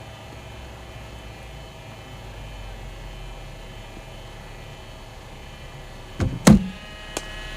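Steady low hum, then about six seconds in two quick thuds, the second and louder a cricket ball struck with the bat, followed by a faint knock.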